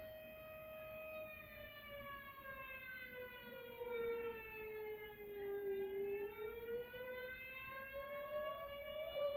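Tornado warning siren wailing, played back from a video. Its tone holds steady, sags slowly to a low point about two-thirds of the way through, then climbs back near the end.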